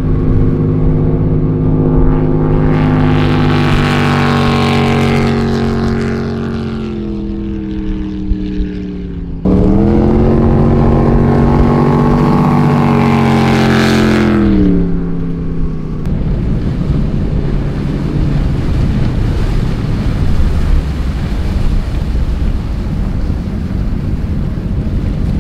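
Junkyard LS-swapped 5.3 V8 in a small speedboat running at high revs, its pitch sagging as the throttle is backed off about six seconds in. It jumps back abruptly to high revs about nine seconds in, then sags again. From about two-thirds of the way through, the engine fades under a steady rush of water and wind.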